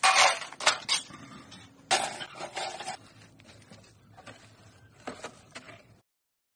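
Broken bricks clattering off a shovel into a steel wheelbarrow in two loud bursts about two seconds apart, followed by quieter scraping and a single knock.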